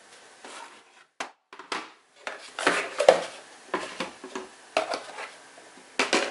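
White plastic access point housings being handled and set down against each other and a stainless steel table: a string of knocks and clatters, loudest about three seconds in.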